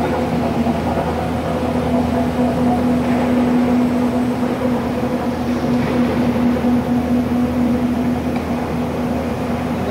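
Steady hum of mechanical punch presses and workshop machinery running, with one strong constant humming tone and no distinct stamping strokes.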